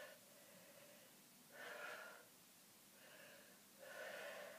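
Faint breathing of a woman exerting herself through repeated hip-hinge exercises: three breaths in about two-second rhythm, about a second and a half in, about three seconds in and near the end.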